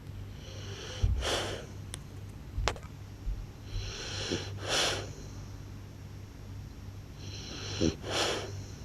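French bulldog snoring loudly: three long, rasping snore breaths, about three and a half seconds apart, each with a high hissing edge.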